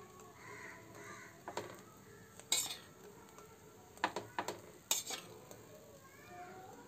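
A metal spoon clinking against a steel bowl and a pan: a handful of sharp, irregularly spaced clinks as beaten egg is spooned out. The loudest clink comes about two and a half seconds in.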